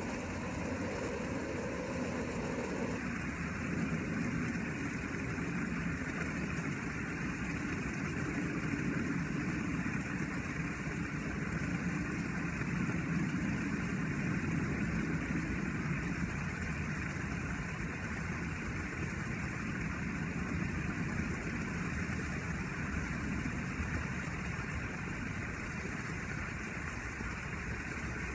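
A steady motor hum with an even noise over it. A higher part of the hum stops about three seconds in.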